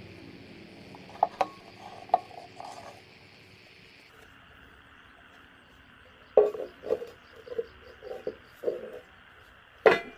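Light knocks and taps of hollow PVC plastic panels being handled and set against each other and the workbench: a few taps about a second in, a run of short hollow knocks in the second half, and one sharper knock near the end.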